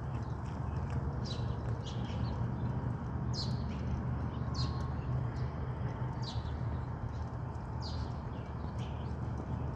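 A bird repeating short, high, falling chirps every second or two, over a steady low outdoor rumble.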